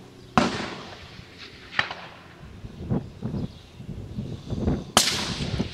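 Two shots from a scoped precision rifle, about four and a half seconds apart, each with a short echoing tail, and lighter knocks between them.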